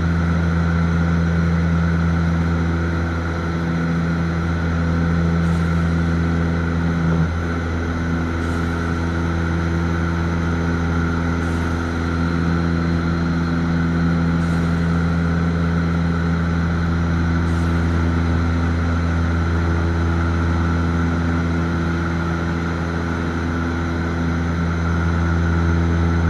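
A steady engine drone with a constant low pitch that neither rises nor falls, like a motor running at an even speed, with faint light ticks every few seconds.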